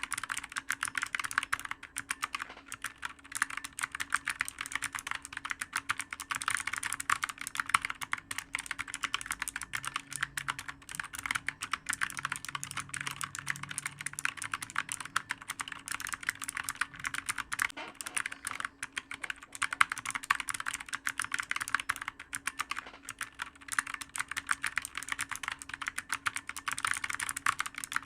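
Continuous fast typing on a clicky computer keyboard: rapid, irregular keystroke clicks, several per second without a break.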